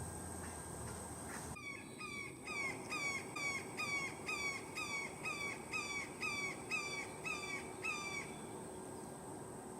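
An animal calling in a steady series: about fourteen short downslurred calls, about two a second, which stop a little over halfway through.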